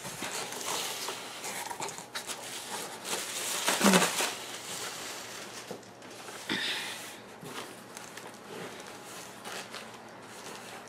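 Crinkling and rustling of foam-sheet and paper packing material being handled inside a cardboard box, with scattered light knocks and a louder burst about four seconds in.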